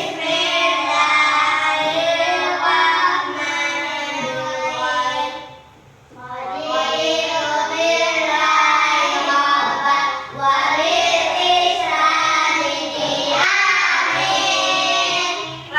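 Children singing a song together, with a brief pause about six seconds in.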